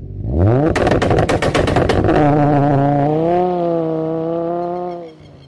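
A car engine revs up with a rising note, breaks into a rapid rattle of exhaust pops and bangs for about a second, then holds a steady high note that fades out near the end.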